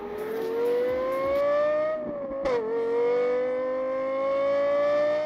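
A car engine accelerating hard, its pitch climbing. About two and a half seconds in there is a sharp drop with a click, like a gear change, and then the pitch climbs again.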